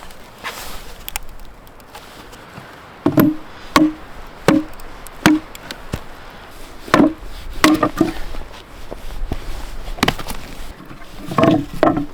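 Axe chopping into wood: about ten sharp blows in uneven groups, some close together in pairs.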